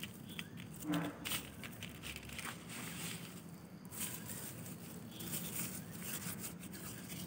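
Thin strips of shredded notebook paper rustling and crinkling in irregular bursts as hands scrunch them and rub them between the palms, crimping them into paper-grass gift filler.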